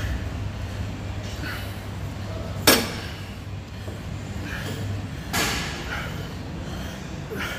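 Metal gym weights clanking: one sharp, ringing clank about a third of the way in and a softer one past the middle, with a few faint clinks over a low hum.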